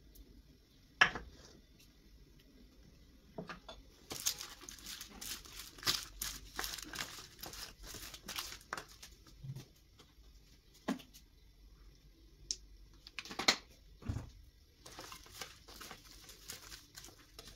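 Bursts of crinkling and rustling, with a few sharp knocks, the loudest about a second in.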